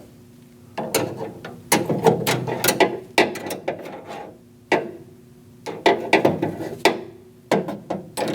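Bursts of sharp metallic clicks and rattles, several clusters a second or so apart, each with a short ring: the lock rods and latch inside the hollow rear door of a Chevrolet Express van being worked with a pick.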